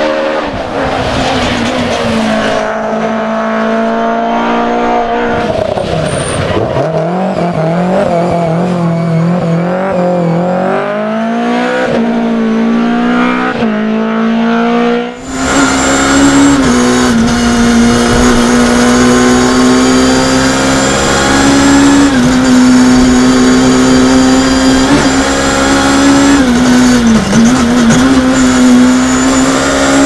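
BMW M3 E30 rally car's four-cylinder engine at full throttle, first heard from the roadside as the car approaches, its pitch climbing and dropping through gear changes and braking. About halfway through, the sound switches to inside the car: the engine held near 8,000 rpm, with short dips at the gear shifts.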